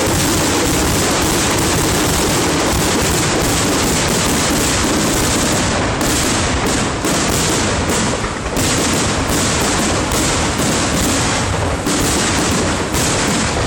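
Fireworks going off in a loud, rapid barrage of bangs and crackling. The cracks come as a dense continuous run at first and grow more separate in the second half.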